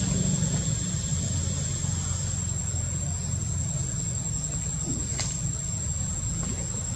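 Outdoor ambience: a steady low rumble with a constant high-pitched insect drone over it, and one brief click about five seconds in.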